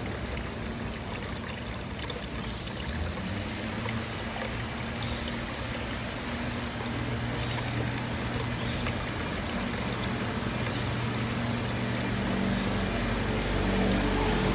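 Water trickling and splashing down the tiers of a three-tier ceramic rock tabletop fountain, steady throughout, over a faint low hum.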